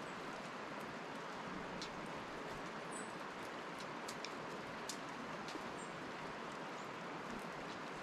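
Steady outdoor hiss of woodland ambience, with a few short, high bird chirps and scattered small clicks.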